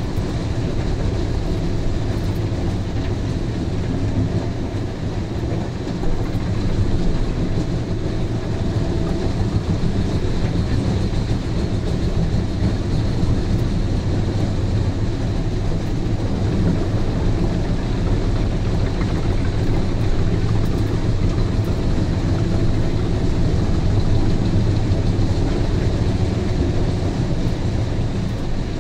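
Albach Diamant 2000 drum chipper running steadily under load, chipping softwood logs, heard from inside the machine's cab as a loud, unbroken heavy engine drone with the grinding of wood being chipped.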